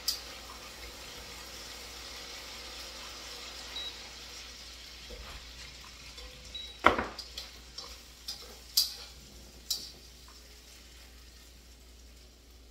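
Vegetables sizzling in a wok-style frying pan as they are stirred, the hiss fading in the second half. A utensil knocks and clinks against the metal pan several times between about seven and ten seconds in, the first knock the loudest.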